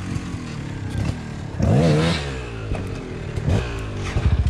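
Enduro dirt bike engines idling, with a quick throttle blip about two seconds in and a smaller one later. Near the end a louder, evenly pulsing idle comes in.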